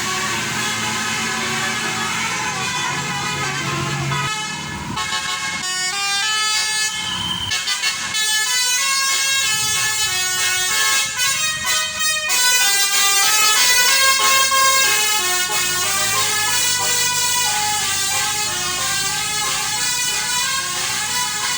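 Tour bus's telolet basuri musical air horn playing a tune, a long run of short pitched notes stepping up and down. A low engine drone sits under it near the start and again near the end.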